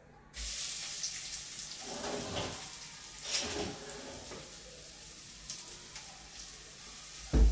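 Chopped onion sizzling in hot oil in a clay cooking pot. The sizzle starts suddenly as the onion goes in and stays steady, with a few short knocks and scrapes as the bowl is emptied. A loud thump comes near the end.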